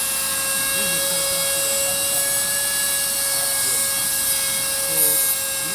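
650 W trimmer router used as a CNC router spindle, running at high speed with a steady whine and a loud hiss. A brief louder scrape comes about five seconds in.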